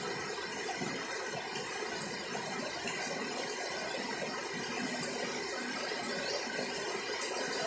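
Heavy rain pouring steadily onto foliage, an even, unbroken hiss.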